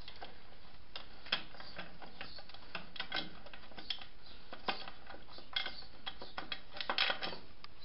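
Irregular light metallic clicks and taps, some in quick little clusters, from the loosened belt-pulley cover on a Fortschritt E930 garden tractor being handled.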